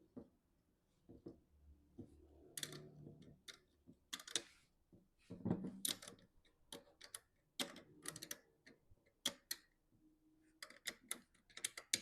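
Irregular clicks and taps of a tool tightening the nuts on a glass ink tank's bolts, a few strokes close together, with short pauses between.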